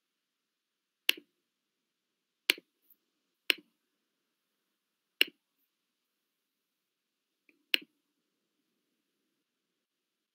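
Five single sharp clicks, a second or two apart, from clicking on a Mac computer.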